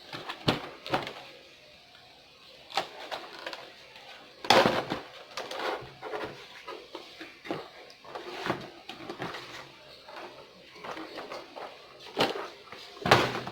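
Irregular handling noises of a cardboard box and paper: rustles, taps and knocks, the loudest about four and a half seconds in and again near the end.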